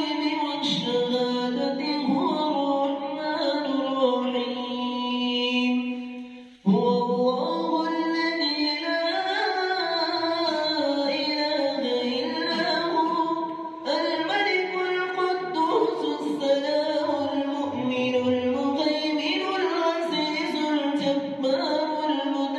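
A man reciting the Quran in a slow, melodic style through a microphone and loudspeaker, holding long drawn-out notes that glide from pitch to pitch. He breaks off briefly for breath twice, about a third of the way in and again just past halfway.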